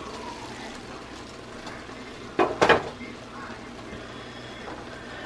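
A glass pot lid clanking twice against metal as it is set down, about two and a half seconds in, over the steady soft hiss of a stir-fry cooking in a steel skillet.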